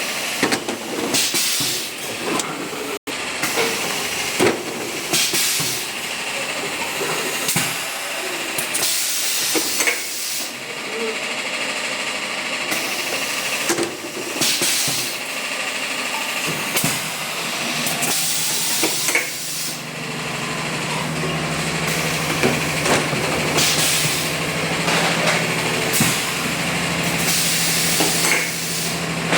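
Oil-free air compressor at work: repeated bursts of hissing air, joined about two-thirds of the way through by a steady motor hum.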